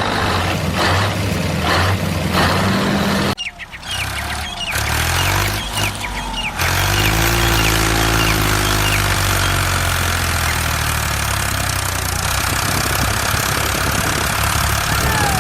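Truck engine running, its pitch stepping up and down, with birds chirping. The sound cuts out sharply about three and a half seconds in, then the engine comes back and runs steadily.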